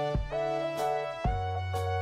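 Instrumental background music: held notes over a sustained bass line, a new chord struck about a second in.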